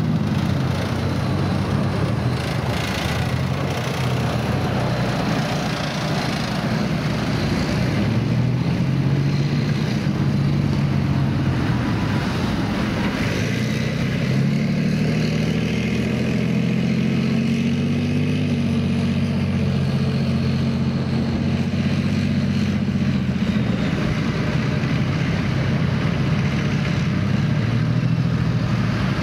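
Heavy diesel engine of an armoured tracked vehicle running, its pitch dipping and rising again a couple of times as the engine is throttled.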